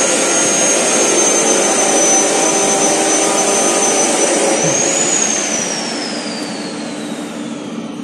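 Loud mechanical rushing noise with a thin high-pitched whine, from a fast-spinning machine. About five seconds in the whine rises briefly, then falls steadily in pitch as the sound fades, like a machine winding down or moving away.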